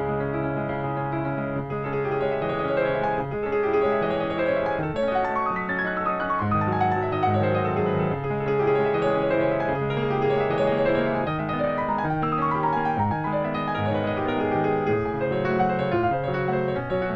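Piano playing a flowing piece, with chords underneath and quick runs of notes cascading downward twice.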